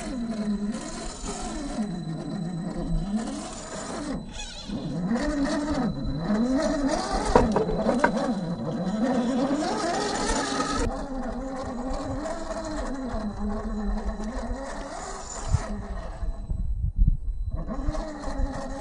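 A 1/10 scale RC rock crawler's 21T 550 brushed electric motor and geartrain whining, the pitch rising and falling in smooth swells as the throttle is fed in and eased off while crawling over rock. Near the end, a few sharp knocks come from the truck on the rock.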